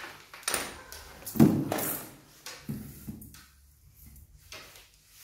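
Handling noises from an electric-bike battery block being shifted and set down on a tiled floor: a loud thump about one and a half seconds in, with lighter knocks and scrapes before and after it.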